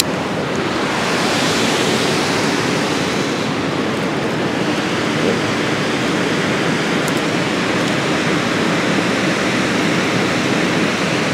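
Water rushing steadily and loudly through a dam spillway, an even churning whitewater rush.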